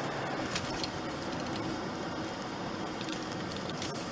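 Steady road and engine noise inside a moving car's cabin, picked up by the dashcam, with a couple of light clicks under a second in.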